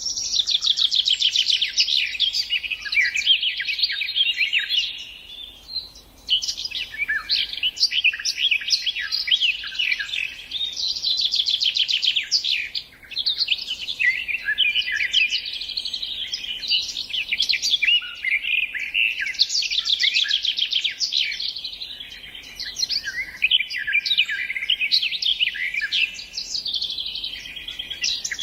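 A songbird singing long, rapid, varied phrases of trills and chirps, with short breaks about six and thirteen seconds in.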